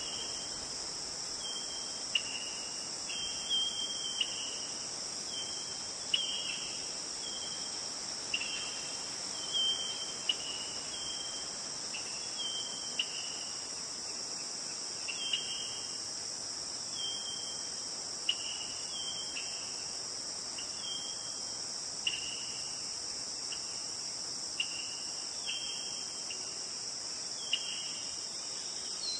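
Chorus of crickets or similar insects, a steady high-pitched drone. Over it a short call near 3 kHz repeats about once a second, each note starting with a sharp click and dropping slightly in pitch.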